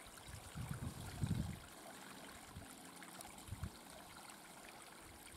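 Faint trickle of a small unseen brook. A few low thumps come in the first second and a half and once more about three and a half seconds in.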